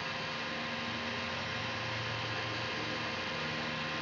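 Steady electrical hum over an even hiss, unchanging throughout, with no knocks or clicks.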